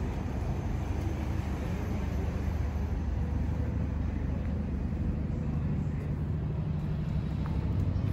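Honda CRF250 Rally's single-cylinder 250 cc engine idling steadily through a Yoshimura aftermarket exhaust.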